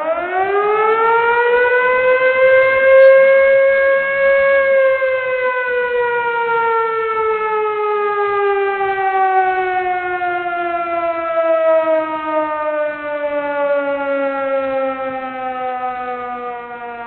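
Old police car siren giving one long wail: it winds up quickly in the first few seconds, holds at its top pitch, then slowly falls in pitch as it winds down.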